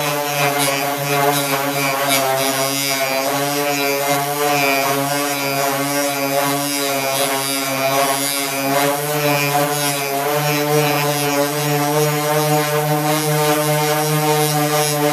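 Craftsman 5-inch, 2.4-amp random orbit sander (model 11217) running steadily under load: a steady motor hum with the rasp of the sanding pad grinding through car paint to bare metal. It gets a little louder about ten seconds in.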